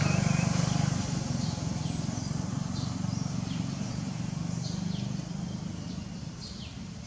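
A motor vehicle engine running close by and fading steadily as it moves away, with short, high, falling chirps from birds every second or so.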